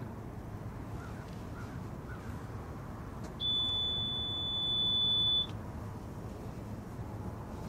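A single steady high-pitched electronic beep, about two seconds long, starting about halfway through, over a steady low background hum.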